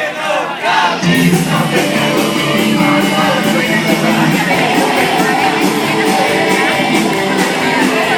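Loud rock music with a steady beat, led in by a shouting voice in the first second.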